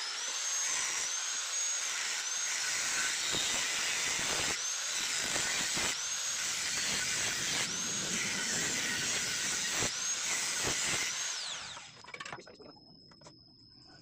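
Electric angle grinder with a cutting disc slicing through a steel motorcycle muffler: a high whine that sags in pitch again and again as the disc bites into the metal. About eleven seconds in the grinder is switched off and spins down.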